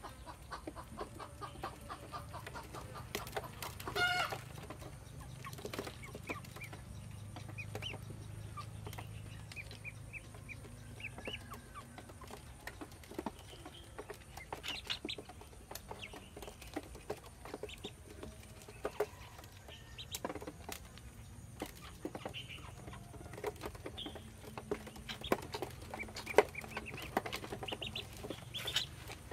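Ducklings peeping in short high calls while their bills click and scrape as they peck grain from a dish, with one louder call about four seconds in.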